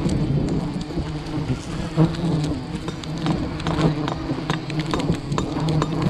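A swarm of honey bees buzzing around their nest, a steady droning hum, with scattered clicks and knocks over it.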